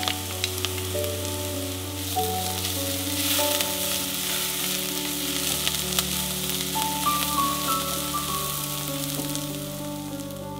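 Chopped onions, bell peppers and garlic sizzling in oil in a pot, stirred with a spatula, with a few sharp clicks near the start. Soft background music plays underneath.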